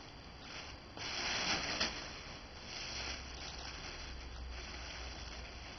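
White tissue paper rustling and crinkling as hands unfold it from around a doll, loudest for about a second shortly after the start, then softer rustling.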